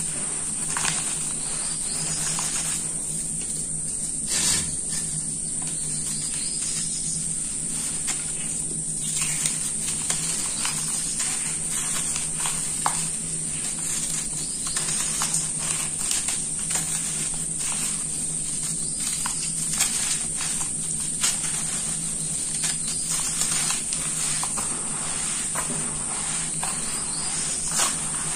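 Hands crumbling and squeezing lumps of sand and cement mix in a metal pan: many small gritty crunches and crackles as clumps break, over a steady high hiss.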